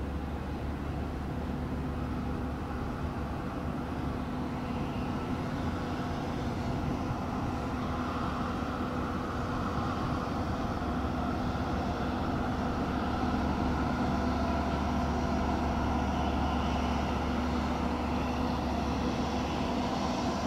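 Jet engines running on an airport apron: a steady drone with a constant hum, swelling a little around the middle as a Boeing 767 taxis close by.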